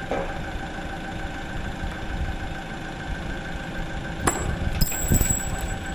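Forklift engine running steadily as it lifts a radiator hung on chains. About four seconds in there is a sharp metallic clank with a brief high ring, then a few knocks.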